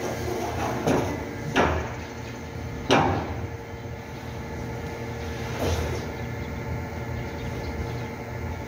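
Wooden pallets knocking and clattering as they are handled: four hard knocks in the first six seconds, the loudest about three seconds in, over a steady low machine hum.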